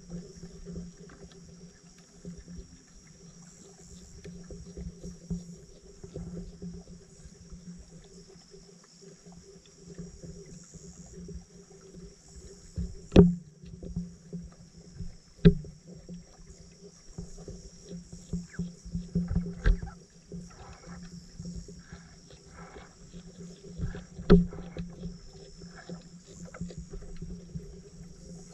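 Underwater sound heard through a camera submerged in lake water: a steady low hum with scattered sharp clicks and knocks, the loudest three coming two close together a little before halfway and one later on.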